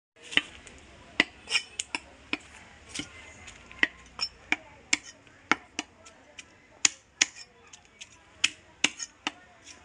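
Heavy cleaver scraping scales off a fish on a wooden log block: sharp, crisp clicks with each stroke, irregular, about two a second.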